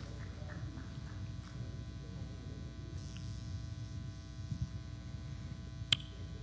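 Steady electrical hum and buzz from the church sound system over a low room rumble, with one sharp click about six seconds in.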